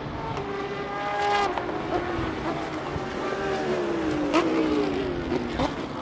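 Several GT race car engines heard together from trackside as the cars pass through the esses. One engine note climbs and breaks off about a second and a half in. Later another falls steadily over about three seconds. A few short sharp cracks come at the breaks in the engine notes.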